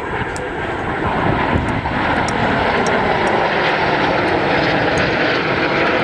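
Engines of three airplanes flying over in close formation: a steady, dense engine noise that swells over the first second or two and then holds.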